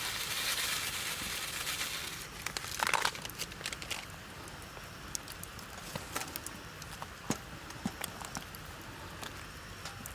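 Wood campfire crackling: a steady hiss for the first two seconds, a louder crackle about three seconds in, then scattered sharp pops.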